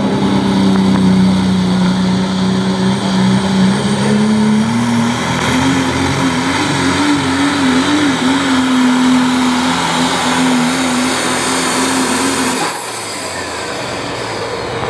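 Diesel Chevrolet Silverado pulling truck running flat out as it drags a weight-transfer sled, its engine note steady, then rising slightly and wavering about five seconds in. Near the end the throttle is let off and the engine sound drops away suddenly as the pull ends.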